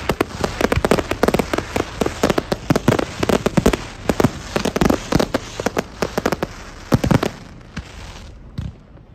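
Aerial fireworks crackling: a dense, rapid run of small sharp pops that thins out after about seven seconds, leaving a few last pops near the end.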